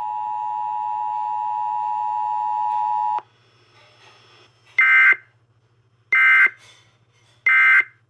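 Emergency Alert System two-tone attention signal played through a laptop speaker, a steady dual tone that cuts off about three seconds in. It is followed by three short, evenly spaced warbling data bursts, the end-of-message code that closes the alert.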